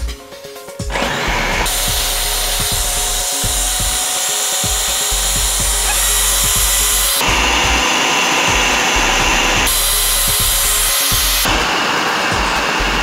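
Britânia food processor running, its blade chopping garlic cloves and salt into a paste. The motor starts about a second in and keeps going steadily, its tone shifting several times as the garlic breaks down.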